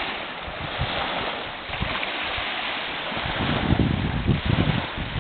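Small waves washing onto a sandy shore in a steady rush of water, with wind buffeting the microphone in gusts that grow heavier from about three seconds in.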